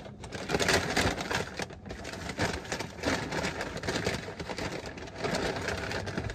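Paper takeout bag rustling and crinkling in irregular bursts as food is taken out of it.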